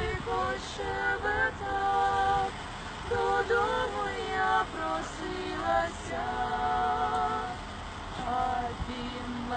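Several women singing a lullaby a cappella, unaccompanied, in slow phrases with long held notes.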